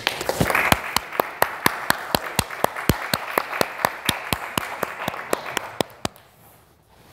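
Applause from a small audience, one clapper close by striking about four claps a second over the others, dying away after about six seconds.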